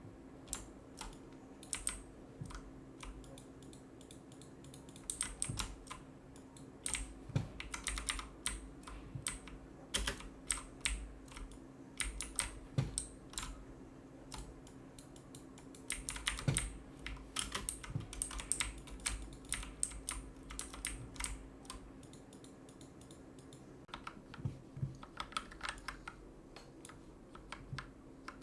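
Redragon Kumara mechanical keyboard fitted with Akko Matcha Green switches and foam, keys pressed in irregular bursts of quick strokes with short pauses between them, over a steady low hum. The keystrokes are fairly soft, after a switch swap done to quiet the keyboard.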